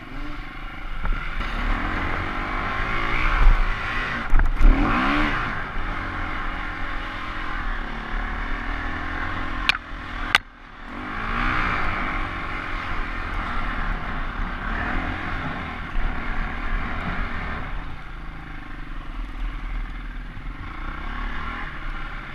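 Off-road trail motorcycle engine running under load over rough track, revving up and easing off, with clatter from the bike over the bumps. About ten seconds in, two sharp clicks come as the engine note briefly drops away, then it picks back up.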